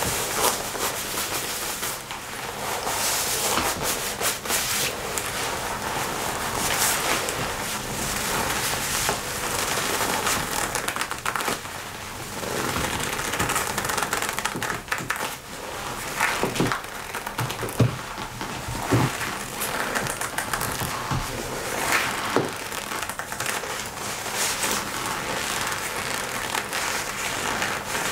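Hands rubbing and squeezing a black leather biker jacket: a steady crinkly rustle of the leather, with a few sharper creaks and crackles a little past the middle.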